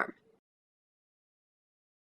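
The end of a narrator's spoken word, then dead silence with no bumping or other sound.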